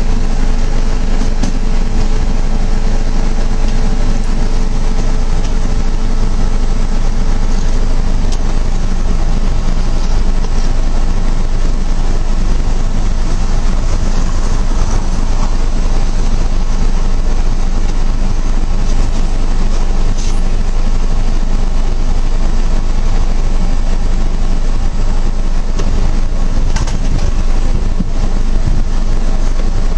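Loud, steady rumbling noise, heaviest in the low end, with a faint steady hum that fades out about eight seconds in.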